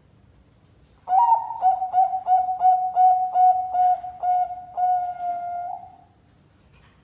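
Bangkok-strain zebra dove (perkutut) cooing: a quick, even run of about ten short coos, roughly three a second, starting about a second in and ending in one longer held coo.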